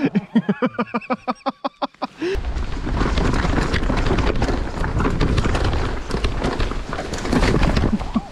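A person's voice in quick rhythmic bursts for about two seconds. Then a mountain bike is ridden fast down a rocky trail: a steady rumble of tyres, wind on the microphone, and many small clattering knocks from the bike over the stones.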